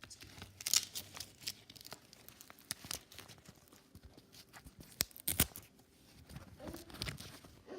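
Crinkling and rustling of handled material, broken by irregular sharp clicks and knocks, loudest about a second in and again about five seconds in.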